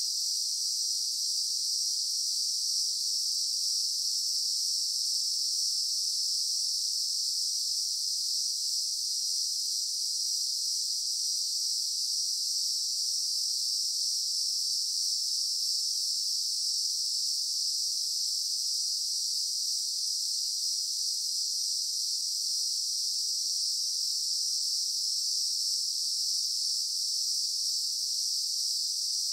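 Steady, high-pitched insect chorus that does not rise, fall or break; no koala calls are heard.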